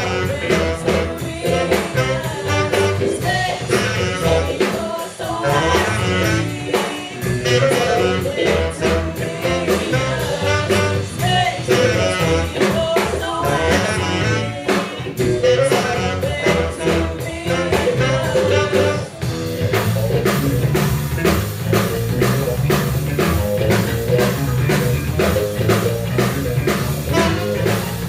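Live band playing a funk-rock tune: a tenor saxophone melody over drum kit, bass and guitar. About two-thirds of the way through, the cymbals get brighter and the bass fuller.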